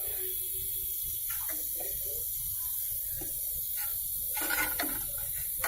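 CTC flushing solvent and air hissing and gurgling through a refrigerator coil under pressure from a second compressor, with a steady hiss, scattered gurgles and two louder spurts, one about four and a half seconds in and one at the end.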